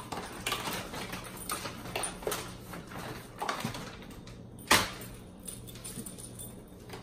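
Siberian husky puppy eating food off a hard floor: irregular small crunching and clicking sounds, with one sharper click about five seconds in, over a steady low hum.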